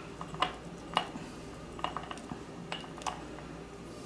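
Light clicks and ticks of a small flat screwdriver working at the metal terminal of a bulb socket while stranded copper wire is redone around it, about five clicks spread over four seconds.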